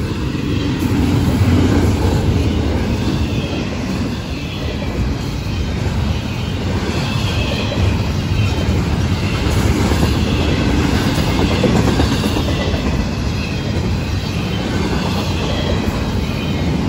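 Double-stack intermodal container cars of a Florida East Coast freight train rolling past close by: a steady rumble and clatter of steel wheels on the rails, with a faint high wheel squeal now and then.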